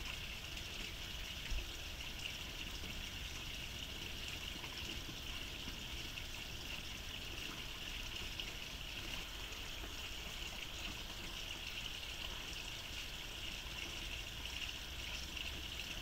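Steady rush and trickle of a small stream, an even noise that doesn't change, with one soft low thump about a second and a half in.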